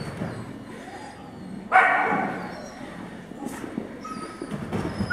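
A dog barks once, loudly, about two seconds in, the bark ringing on in the hall's echo, and barks again right at the end.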